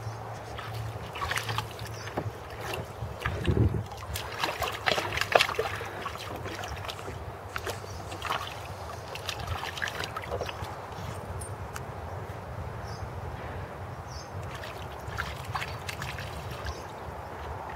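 A Staffordshire Bull Terrier pawing and wading in a plastic paddling pool: irregular splashes and sloshes of water, busiest about four to five seconds in.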